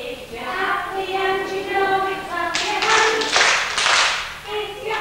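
A group of young children singing a song together, with a run of hand claps in the middle.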